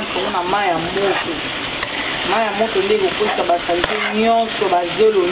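Small fish and vegetables frying in a stainless steel pan, stirred with a spatula: a steady sizzle broken by scattered clicks and scrapes of the spatula against the pan. A wavering pitched sound, voice-like, bends up and down through it.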